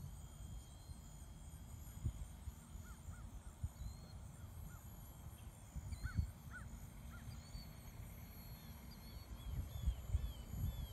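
Gusty wind buffeting the microphone in uneven rumbling blasts, with short bird calls scattered over it, more frequent near the end.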